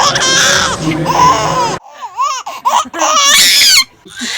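A baby's high voice laughing and squealing in short bursts, in two clips, the first cutting off abruptly.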